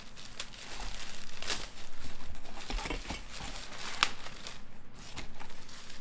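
Clear plastic bag and packaging crinkling and rustling as they are handled, with irregular sharp crackles.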